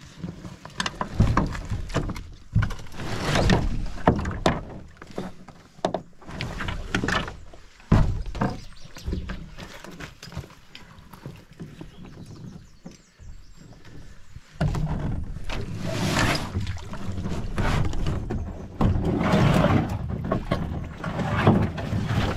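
Canoe being unloaded and lifted out of the water: a run of irregular hollow knocks and scrapes against the hull, with rustling of packs and clothing, busier in the last several seconds.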